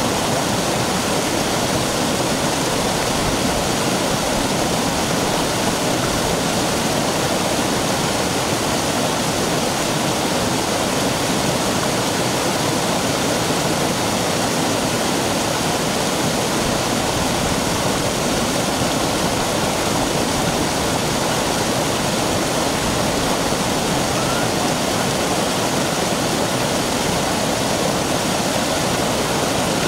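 Stream water rushing steadily down a sloping rock slab in a small cascade, a loud, even roar of white water.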